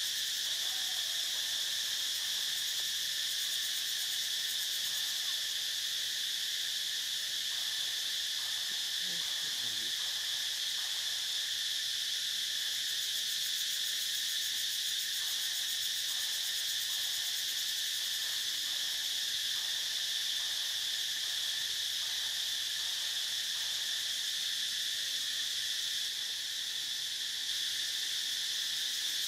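Steady, high-pitched drone of an insect chorus, an unbroken buzzing that holds the same level throughout.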